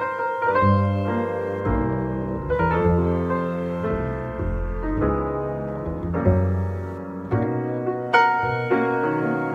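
Grand piano and plucked upright double bass playing a jazz ballad together, with piano chords over sustained bass notes.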